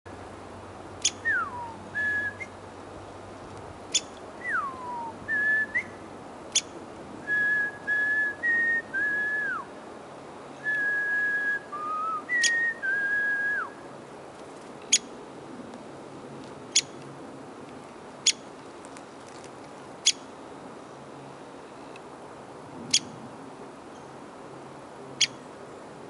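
A man whistling to call birds to the seed on his outstretched hand: short level notes and a few falling slides, which stop about halfway through. Sharp single clicks sound every second or two throughout.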